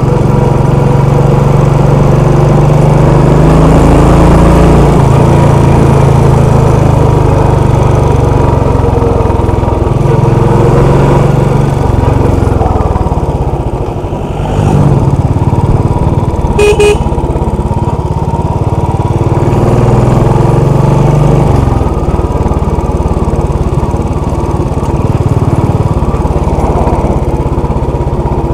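Royal Enfield Classic 500's single-cylinder engine running on a downhill ride, its note rising and falling with the throttle. A short horn beep sounds about two-thirds of the way through.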